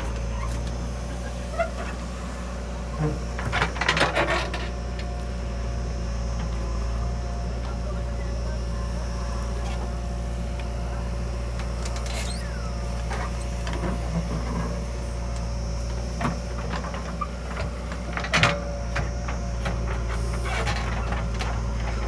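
Heavy diesel machinery running steadily at a low hum, with scattered clanks and knocks, a cluster about four seconds in and a sharp one past eighteen seconds.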